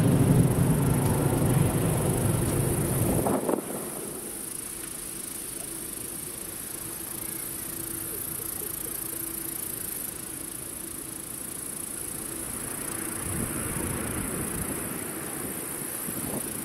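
Boeing 767-300 airliner's jet engines at idle as it taxis, a steady distant whine over a low rumble that swells near the end. Music plays over the first three and a half seconds and cuts off.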